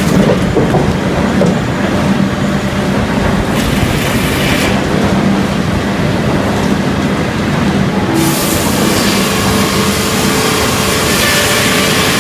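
Circle sawmill running: a loud, steady mechanical drone with a hum. The higher hiss falls away at the start and comes back about eight seconds in.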